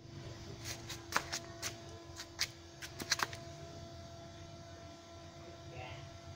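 A quick, irregular run of about a dozen sharp clicks in the first three seconds, over a faint steady hum and low rumble.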